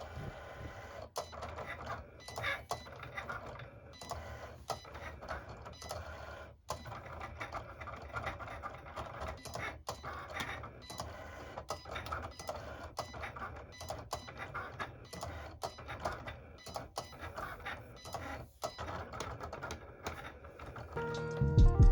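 A Cricut cutting machine running, with the busy whir and irregular clicking of its carriage and rollers at work.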